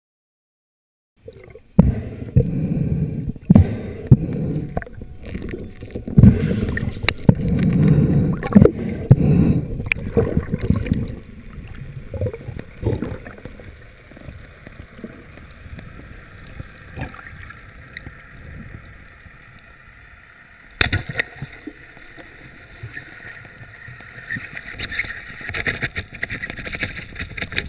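Underwater camera audio of a freediver with a speargun: rushing, bubbling water with knocks and clicks, loud for the first ten seconds and quieter after. A single sharp crack about 21 seconds in is the speargun firing.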